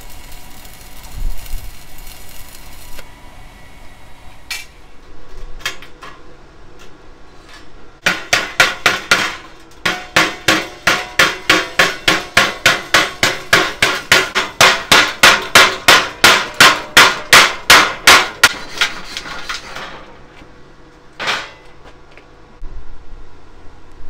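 A stick-welding arc hisses and crackles for about the first three seconds. Then a chipping hammer strikes the freshly laid weld beads on a steel plate, knocking off slag: a few single blows, then a long fast run of about four blows a second, and one last blow near the end.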